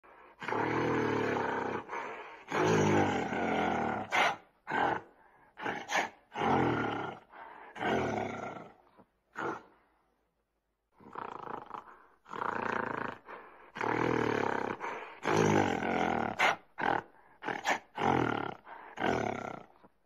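A large animal roaring over and over: loud calls of a second or two each, following one another closely, with a brief pause about ten seconds in.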